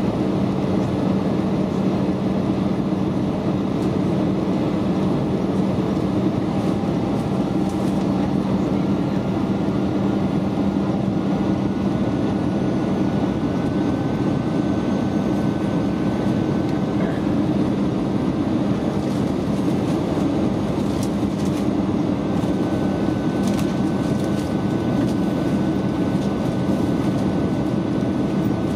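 Cabin noise inside an Airbus A320 on final approach: the steady rushing of airflow and its CFM56 turbofan engines, with a strong low hum and a faint high whine.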